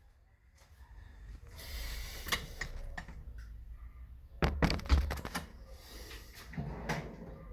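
Irregular clicks and knocks, with a cluster of heavier thuds about four and a half seconds in, over a low rumble.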